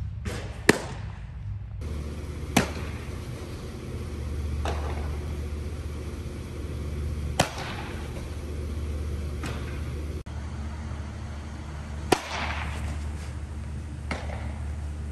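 Baseballs popping into a catcher's mitt: sharp leather pops a few seconds apart. Three of them are each followed about two seconds later by a fainter, echoing pop as the catcher's throw down to second base lands in the fielder's glove. A steady low hum runs underneath.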